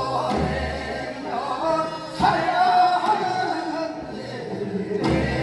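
Korean folk song (minyo) sung on stage by voices with musical accompaniment, including long held, wavering notes.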